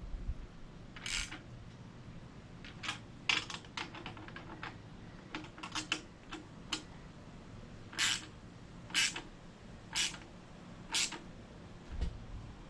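Hand socket ratchet tightening a mounting bolt on a motorcycle luggage-rack base plate: short bursts of pawl clicking on each back-swing, with quick runs of clicks in the middle and four evenly spaced bursts about a second apart near the end as the bolt is snugged down.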